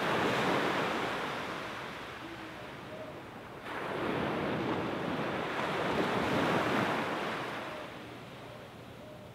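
Small ocean waves washing up on a sandy beach: two surges, one at the start and a second beginning just before four seconds in, easing off near the end.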